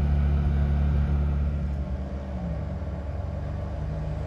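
An engine running with a steady low hum. It gets quieter and shifts in pitch about two seconds in.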